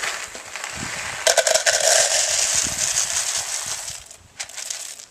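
Green coffee beans poured from a paper bag into a plastic cup, a dense rattling patter of many small hard beans. It grows louder about a second in and stops about four seconds in.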